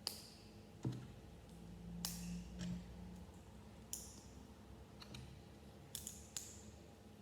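Plastic LEGO pieces clicking and tapping as they are handled and pressed together: a series of sharp, irregular clicks.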